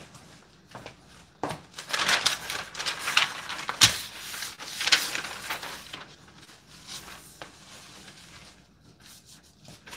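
Newspaper sheets rustling and crinkling as they are unfolded and spread flat on a countertop. The rustling is loudest from about a second and a half in to six seconds in, with a sharp crackle near four seconds in, then only faint rustles.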